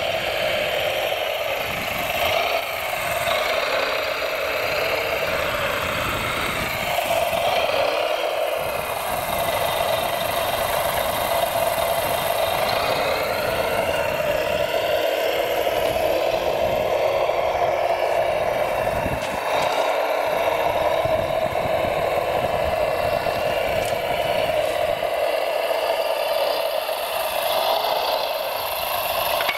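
Radio-controlled hydraulic model machinery running: a steady mechanical whine from the electric motors and hydraulic pump.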